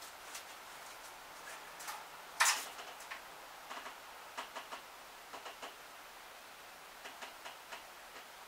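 Light, irregular clicks and taps of small objects being handled on a bench, with one louder knock about two and a half seconds in.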